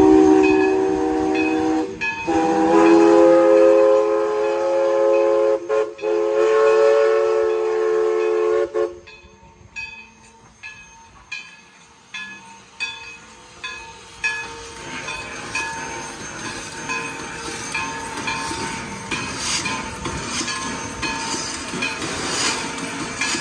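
East Broad Top No. 16 steam locomotive's chime whistle blowing two blasts, a short one and then a much longer one. It is followed by quieter, regular exhaust chuffs and hissing steam as the engine works slowly past.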